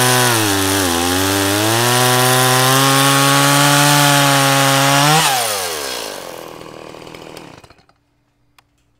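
Stihl MS 170 chainsaw, a small two-stroke engine, running at high revs through a cut in a dry maple log on a freshly hand-filed chain, its pitch dipping briefly as it bogs under load. About five seconds in the throttle is let off and the engine winds down and dies away.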